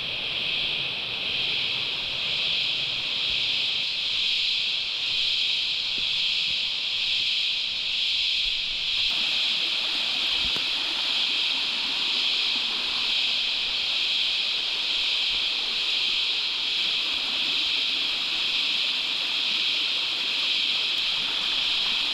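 Chorus of cicadas buzzing steadily and without a break, a high-pitched drone.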